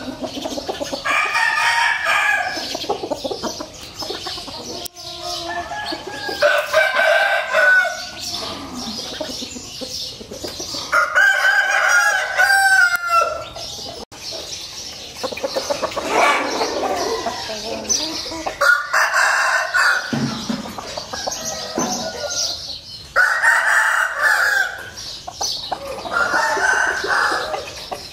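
Gamecock roosters crowing over and over, a long crow every few seconds, some overlapping, with clucking between them.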